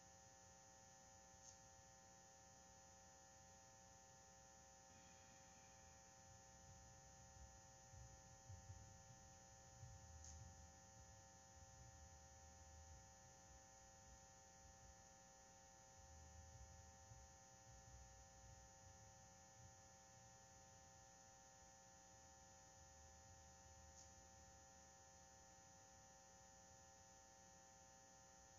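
Near silence: a faint steady electrical hum, with faint low thuds coming and going in the middle stretch.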